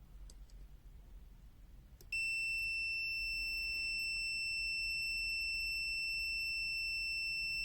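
BSIDE A1 multimeter's continuity buzzer giving a steady, high-pitched beep that starts abruptly about two seconds in, after a couple of seconds of near quiet. It sounds because the measured resistance, 29 ohms, is under the meter's 30-ohm continuity threshold.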